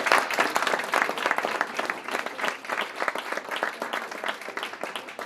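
Audience applauding, loudest at first and gradually dying away.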